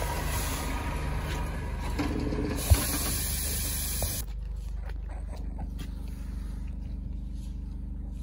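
Delivery lorry's diesel engine running steadily, with a loud steady hiss over it that stops abruptly about four seconds in.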